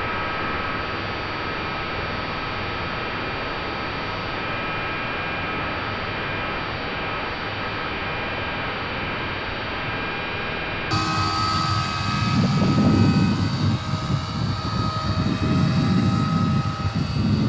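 Battery-powered radio-controlled scale Westland Lynx model helicopter in flight: a steady whine from its motor and gears over rotor noise, heard first from on board. About eleven seconds in the sound switches to the helicopter heard from the ground, with loud, uneven low rumbling under the whine.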